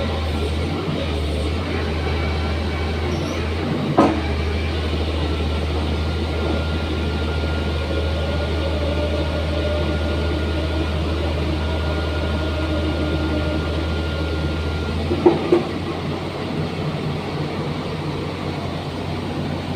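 Excavator running steadily while drilling into the ground, with a low drone under a mix of mechanical noise. There is a sharp knock about four seconds in, then two more knocks about fifteen seconds in, after which the deep drone drops away.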